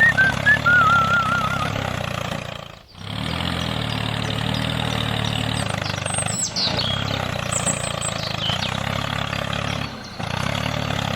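Engine running steadily at idle in a low drone, cut briefly about three, six and ten seconds in. Warbling whistle-like chirps sound near the start, and falling whistles sound midway.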